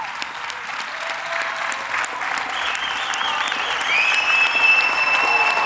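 Audience applauding, a dense steady clapping of many hands. A high held tone rises above the clapping about four seconds in.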